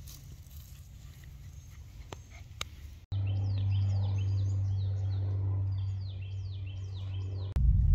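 Faint rustling and a few small clicks as a West Highland terrier noses through tall grass. After a cut about three seconds in, birds chirp over a steady low hum, with many quick, falling notes repeated several times a second.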